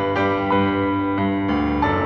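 Instrumental keyboard music: slow held chords that change about every half second to a second, with no singing.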